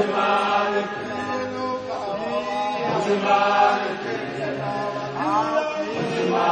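Men's voices chanting a Zulu song in held phrases of about a second each, with one long low note held near the end.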